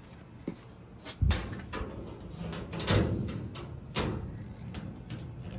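Galvanized sheet-metal duct pieces knocking and clanking as they are handled: a run of irregular metallic knocks, the loudest about a second and a quarter in and again near three seconds.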